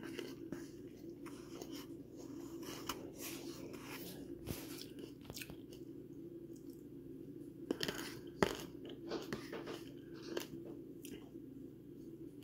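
Close-up eating sounds: someone chewing a spoonful of cottage cheese and cherry tomatoes, with a spoon scooping in a paper bowl, heard as a scatter of soft clicks and smacks over a steady low hum.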